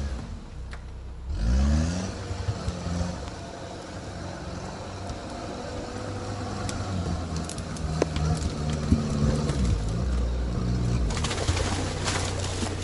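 Sherp amphibious ATV's diesel engine running, with a rising rev about a second and a half in and small changes in speed after. Near the end comes a rush of splashing as its big low-pressure tyres push into the water of the ford.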